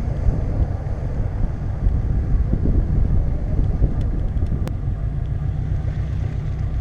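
Jeep Grand Cherokee WJ running while driving off-road: a steady, heavy low rumble of engine and drivetrain that wavers as it goes. There is one sharp click about two-thirds of the way through.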